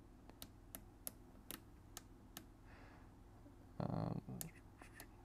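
Sharp single clicks from the AnyTone 578 mobile radio's front-panel controls as the menu is scrolled, about two or three a second, with a short louder sound a little under four seconds in.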